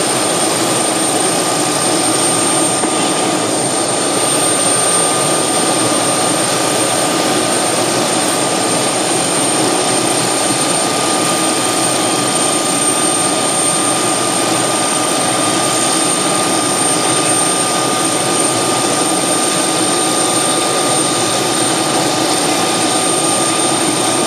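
MD 500-series helicopter running on the ground, its turboshaft engine giving a steady high whine over the even rush of the turning rotor.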